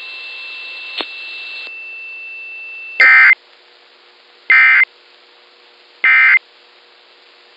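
Emergency Alert System end-of-message signal: three short, loud bursts of warbling digital data tones, each about a third of a second long and about a second and a half apart, starting about three seconds in. Before them there is only a faint hiss with a thin steady tone and a single tick.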